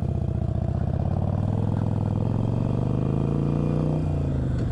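Harley-Davidson Iron 883's V-twin engine running through Vance & Hines Hand Grenade mufflers. The revs climb steadily for a couple of seconds as the bike accelerates, then drop suddenly near the end.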